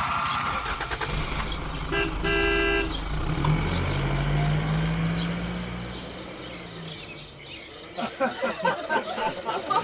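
A vehicle horn gives one short toot about two seconds in, over a low engine rumble that rises in pitch and then fades. Voices chatter near the end.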